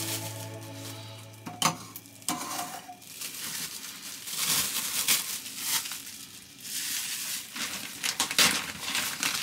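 Plastic cling wrap crinkling and rustling as it is pulled off a cut eggplant and handled, with a couple of light knocks about two seconds in. Background music fades out near the start.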